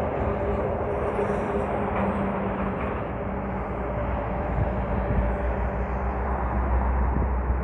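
Steady hum of a motor vehicle's engine mixed with outdoor road noise, unbroken and even throughout.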